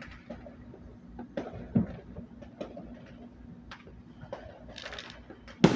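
Fireworks going off at a distance: scattered sharp pops and crackles at irregular intervals, a duller thump about two seconds in, a short hiss near the five-second mark, and a loud, echoing bang near the end.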